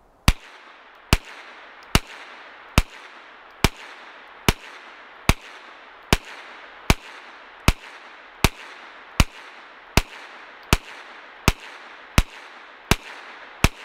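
A Ruger PC Carbine (PC9) 9mm semi-automatic rifle fired at a steady pace, about eighteen shots at a little over one a second, each followed by a short echo.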